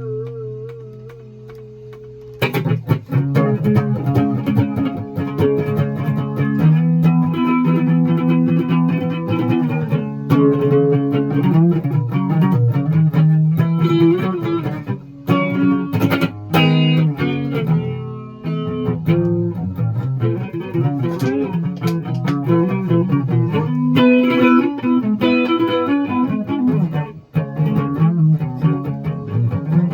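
Electric guitar played through effects: a held chord with wavering pitch fades over the first two seconds, then a steady stream of quick picked notes and chords.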